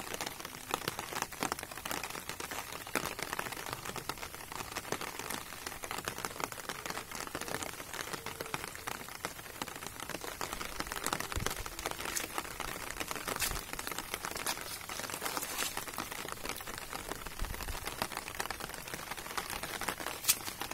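Steady patter of rain falling on a pond and the wet ground, a dense even ticking of drops, with a couple of sharper clicks near the end.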